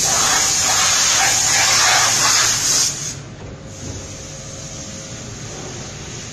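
A loud hiss of compressed air at a silicone rubber injection moulding press, starting abruptly and cutting off after about three seconds, followed by quieter steady machine noise.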